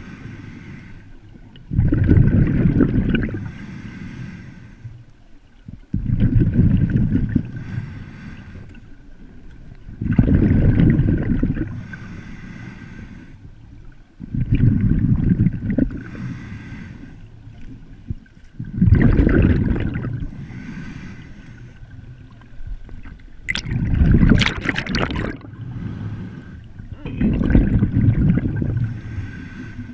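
Water surging and gurgling around an underwater camera in rhythmic swells about every four seconds, with a faint steady high tone beneath. A burst of crackling comes about two-thirds of the way through.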